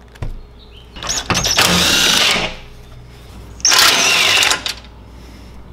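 Cordless impact driver with a 5/16 Allen bit spinning out undercar skid-plate bolts, in two bursts: about a second and a half starting a second in, then about a second near the middle.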